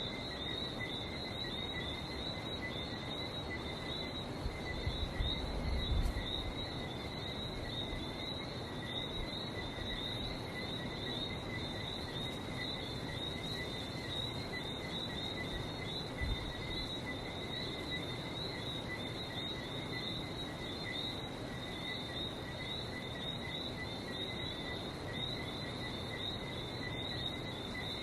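A dense chorus of Lesser Antillean whistling frogs, many overlapping high chirping whistles, over a steady wash of sea noise. A brief low rumble comes about five seconds in.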